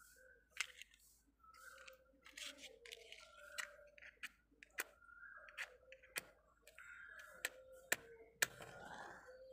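A small matchbox and safety matches being handled: a series of sharp clicks and scrapes as a match is taken out and struck against the side of the box.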